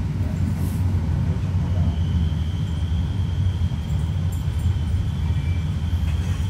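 Steady low rumble of a moving passenger train heard from inside the carriage, with a freight train's wagons passing just outside the window. A faint, thin high whine comes in about two seconds in and holds steady.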